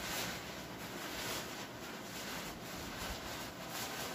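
Silver-coated tent fabric being handled and pulled over a tent, rustling in a string of uneven strokes.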